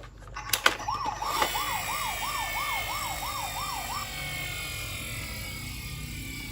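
Toy ambulance's electronic siren wailing quickly up and down, about two or three sweeps a second, for about three seconds before it stops. A few sharp clicks come just before it starts, and a steady hum carries on after.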